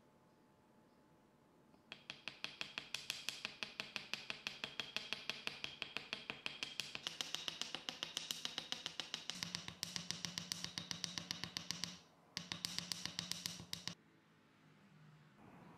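A small metal hammer tapping a brass wire link flat against a steel bench block, in a fast even rhythm of about eight strikes a second, with a short break near the end before the tapping stops.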